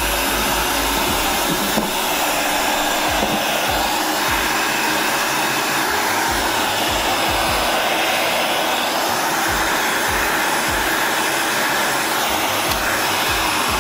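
Electric heat gun running steadily, blowing hot air onto the bare metal pan of a reptile rack to soften the old heat-tape adhesive before it is scraped off.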